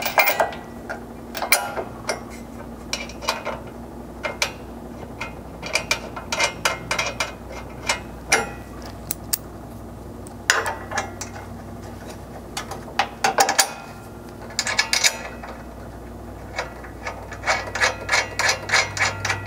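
3/8-inch bolts, washers and flange locking nuts being fitted by hand into a steel rock-slider bracket: scattered metallic clicks and clinks in small clusters, with a quicker run of clicks near the end.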